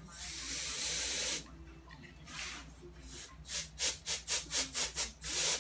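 Air blown onto wet alcohol ink to push it across the panel: a steady hiss of about a second and a half, then after a pause a quick run of short puffs, about three a second.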